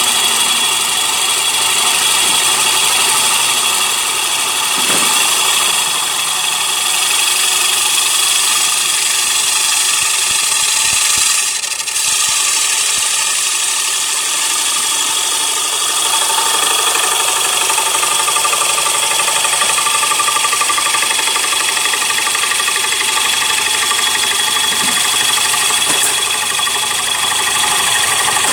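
CNC wood lathe running steadily with a high whine and a hiss while turning a wooden plate; the sound dips briefly about twelve seconds in.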